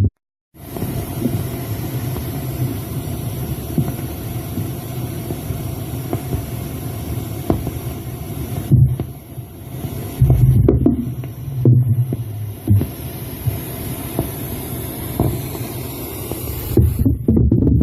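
Low rumbling hum with an uneven throbbing, picked up through a 50 mm borehole casing sunk into bedrock. The recorder takes it for underground tunnel-digging machinery. It cuts out for half a second at the start, and the throbbing swells louder around ten to twelve seconds in and again near the end.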